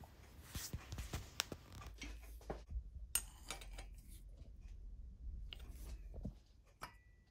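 Light metallic clicks and clinks of a steel strap clamp, washer and nut being fitted over a stud and a nut turned with an open-ended spanner, over a low hum that stops about six seconds in.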